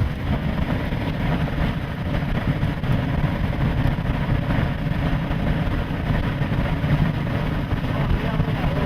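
Steady road and engine noise inside a moving vehicle, heaviest in the low range.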